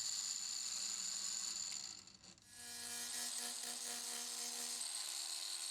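Proxxon LHW/A cordless long-neck angle grinder running and grinding, a steady hiss. It cuts out briefly about two seconds in, then starts again with a steady motor whine.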